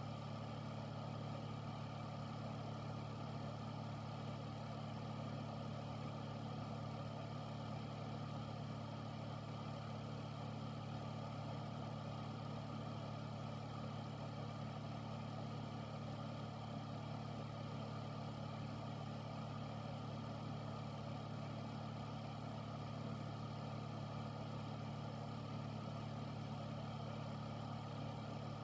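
Air filter unit's fan running steadily: a low, even motor hum under a constant airy whoosh.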